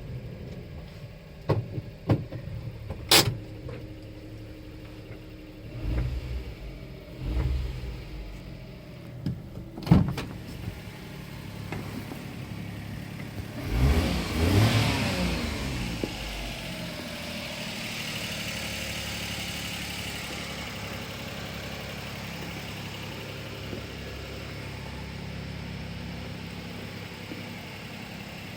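Daihatsu Hijet kei truck's 660 cc three-cylinder engine running. It is revved once about fourteen seconds in, rising and falling, then settles to a steady idle. Several sharp clicks and low thumps come in the first ten seconds.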